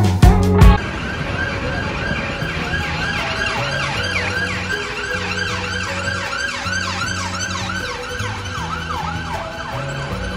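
Emergency vehicle siren in a fast yelp, its pitch sweeping up and down about three times a second. It starts about a second in and runs over a low hum.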